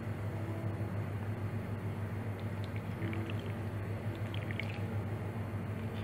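A lemon half squeezed by hand over a bowl of soup, with faint squishing and juice dripping into the broth, over a steady low hum.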